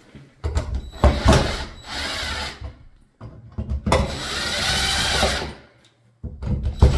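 Power drill-driver tightening the 8-32 mounting screws that secure a ceiling light fixture to its electrical box, running in three bursts.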